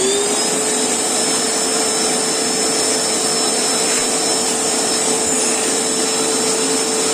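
Black+Decker 1400 W wet-and-dry vacuum cleaner motor just switched on. It comes up to speed in the first moment, then runs steadily at full speed, a constant whine over the rush of air through the hose.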